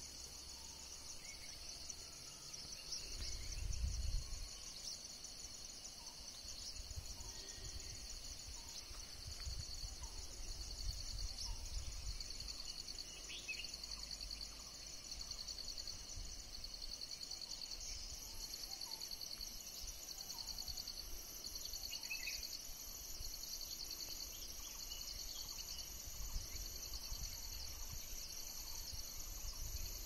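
A steady chorus of insects, a high, finely pulsing drone, with scattered faint bird chirps. A low rumble comes now and then, loudest about four seconds in.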